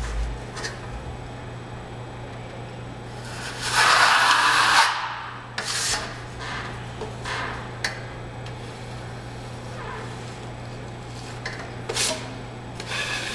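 Steel drywall knife scraping wet filler across a ceiling seam during a skim coat, with one long loud scrape about four seconds in and several short scrapes and taps. A steady low hum runs underneath.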